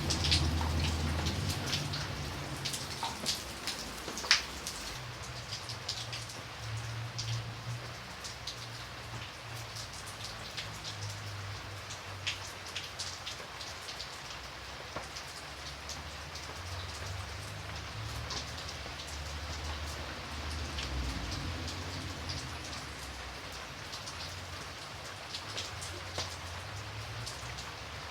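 Steady rain, with many separate drops ticking over a constant hiss. A low rumble comes and goes underneath.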